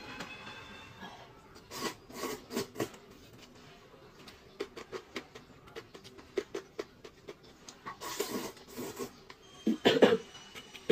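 Close-miked eating sounds of rice noodles being eaten from a paper cup with chopsticks: a run of short clicks, smacks and chewing noises, with a longer slurp about eight seconds in and the loudest burst about ten seconds in.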